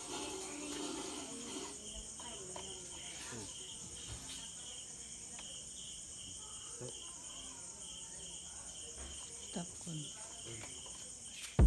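Crickets chirping in the night, a steady pulse of about two chirps a second, over a continuous high insect trill.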